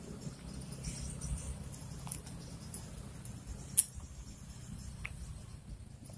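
Insects, likely crickets, chirping in a steady high-pitched band over a low rumble, with a few small clicks and one sharp click just before four seconds in.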